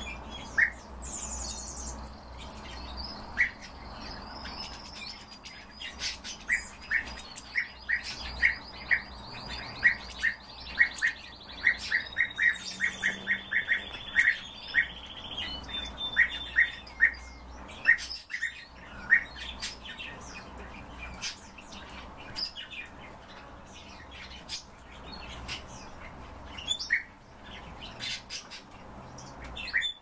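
Caged European goldfinches calling and singing: a string of short sharp chirps, coming fastest in the middle stretch, over a high, rapid twittering trill that stops about halfway through.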